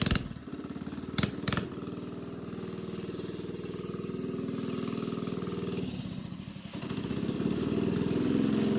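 Small mini bike engine running steadily, with two short clicks about a second in; it gets louder near the end.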